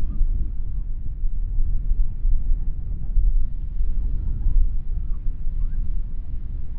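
Wind buffeting the microphone: a steady, fluctuating low rumble.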